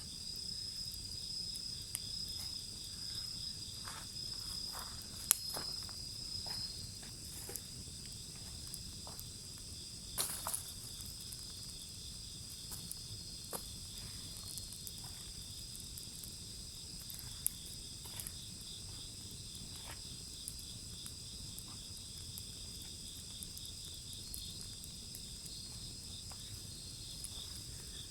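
Wood fire crackling with scattered sharp pops, the loudest about five and ten seconds in, over a steady high chirping of insects.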